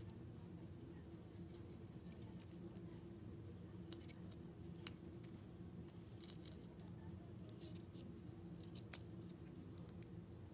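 Faint rustling and scraping of a pipe cleaner being twisted around a pine cone, with a few small sharp clicks as the cone's scales are handled.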